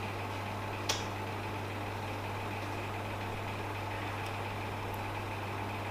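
Steady low hum over even background noise, with one brief click about a second in.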